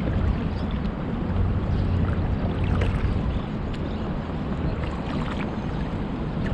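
Wind rumbling on a chest-mounted action-camera microphone over water lapping around a paddleboard, with a few brief splashes about three and five seconds in.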